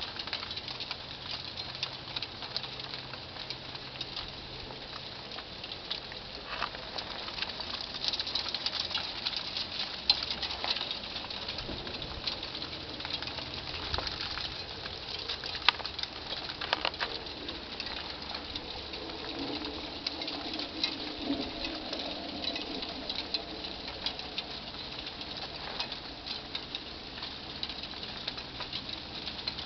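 Freezing rain pattering: a steady, dense spray of fine ticks, with a sharper click now and then.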